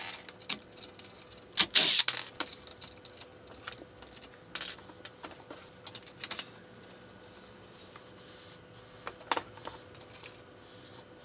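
Scattered clicks and light clinks of an aluminium angle bracket and plastic drag-chain links being handled and fitted against a CNC machine frame, with the loudest clatter about two seconds in.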